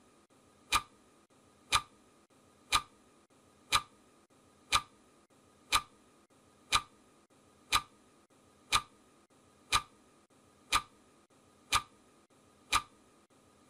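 Clock-tick sound effect for a countdown timer: one sharp tick each second, evenly spaced, with near silence between.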